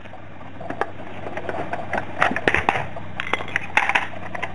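A plastic hubcap being pried and pulled off a steel wheel: a quick run of sharp clicks, snaps and scrapes, busiest between about two and four seconds in, over a steady low hum.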